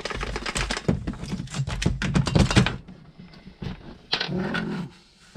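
Rapid clicking and clattering of small metal parts and tools being handled during a chainsaw teardown, dense for the first two and a half seconds or so, then a single shorter burst of sound a little after four seconds.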